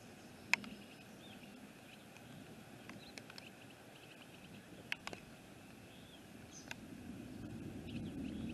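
Storm ambience: a steady low wind rush that builds near the end, with a few scattered sharp ticks and a bird chirping briefly several times.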